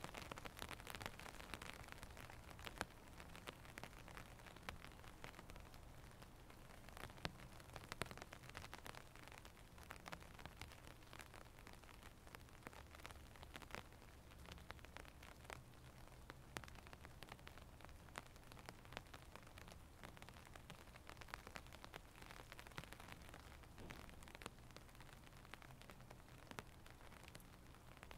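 Faint light rain: a soft hiss with many separate drops ticking irregularly, over a low steady hum.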